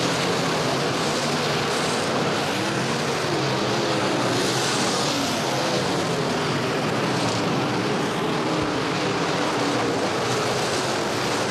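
A pack of IMCA Modified race cars' V8 engines running hard around a dirt oval. Several engine notes rise and fall over one another above a steady wash of noise.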